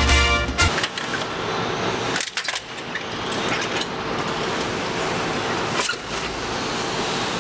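Industrial twin-shaft shredder running, its cutters turning with a steady grinding noise and a faint steady hum as they bite into a football; a single sharp crack a little before the end.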